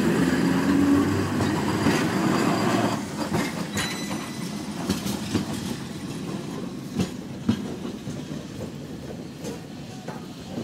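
A tram passes close by, loudest over the first three seconds. Its wheels then click over the rail joints as it draws away, with a brief thin high squeal near four seconds in.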